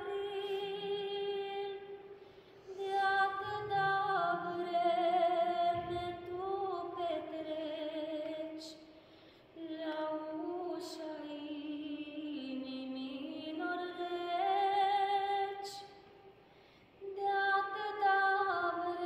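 A choir of women and girls sings a Romanian Christmas carol (colindă) unaccompanied, in several parts, in long held phrases with short pauses between them.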